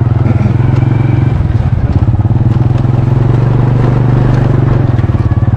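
Small motorcycle engine running close at low speed, with a steady, fast pulsing exhaust note that wavers briefly about a second and a half in.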